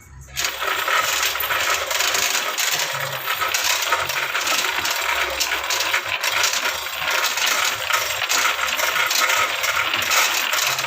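C6240 metal lathe coming on about half a second in and running with a steady, dense metallic clatter.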